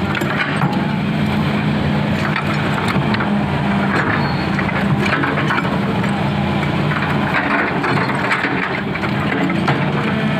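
Hitachi hydraulic excavator's diesel engine running steadily under load, with irregular clattering and scraping over the engine hum.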